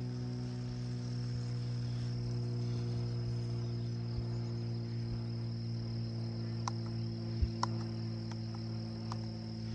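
Crickets trilling steadily in long meadow grass, over a steady low hum of unclear source, with a few short ticks in the second half.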